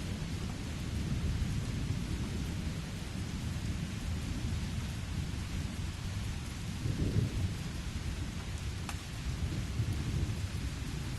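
Steady rain with low rumbling thunder, the thunder swelling about seven seconds in.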